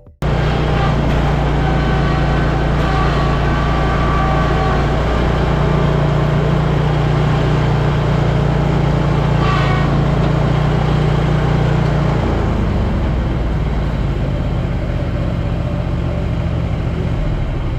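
Zero-turn mower engine running steadily under load, its note shifting lower about twelve seconds in.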